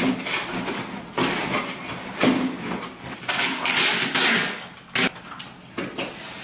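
Cardboard moving boxes being folded into shape and taped shut: flaps rustling and knocking, and packing tape pulled off a tape-gun dispenser in a long rip about three to four seconds in, followed by a sharp click.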